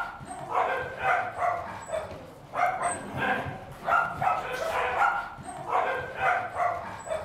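Several small dogs barking over and over, the barks coming in quick runs with short pauses between them.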